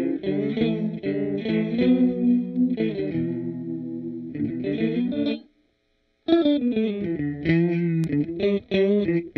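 Electric guitar played through a Seesaw V2 pitch-shifter pedal, its chords thickened by pitch-shifted copies of the notes. The playing stops briefly a little past halfway, then starts again.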